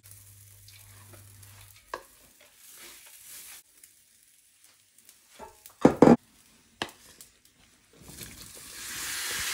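Cooked basmati rice tipped from a glass bowl into a large aluminium pot and stirred with a spoon: soft rustling of the grains, a few sharp knocks against the pot about six seconds in, and a steady hissing rustle that builds near the end.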